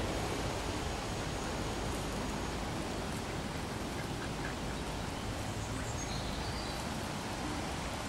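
Steady outdoor background noise, with a few faint, brief sounds from a flock of feral pigeons and ducks crowding around to be hand-fed.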